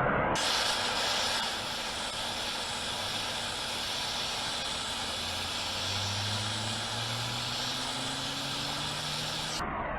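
Heat gun running steadily, a strong rush of blown air with a faint motor hum that slowly rises in pitch. It is heating the palm sander's bearing housing so that it expands and the chilled bearing can slip in.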